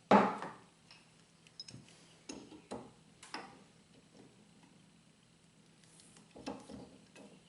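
A wrench clanking and clicking on a water valve as a threaded PVC adapter is tightened further into it. It opens with one sharp clank, followed by several lighter clicks, and another short run of clicks near the end.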